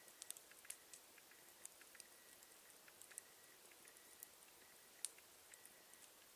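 Campfire crackling faintly: burning wood giving off small irregular pops and snaps, with one sharper pop about five seconds in.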